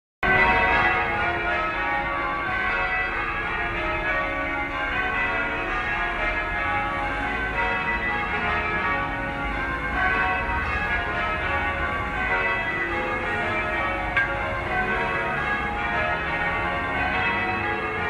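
Christ Church Cathedral's bells ringing a peal, many bells sounding in quick overlapping succession without a break.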